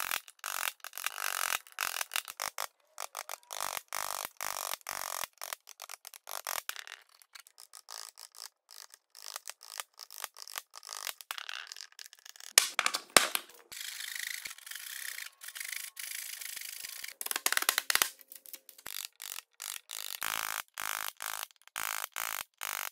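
A steel bench chisel paring and slicing wood fibres while cleaning out a half-lap joint by hand: short, repeated scraping cuts broken by brief gaps. There are a few louder sharp knocks and scrapes past the middle.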